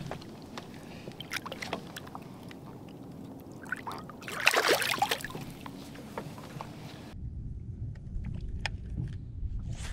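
A largemouth bass let go by hand at the lake's surface: a short splash about halfway through, after some small knocks and water sounds. About seven seconds in, this gives way to a steady low rumble with a few clicks.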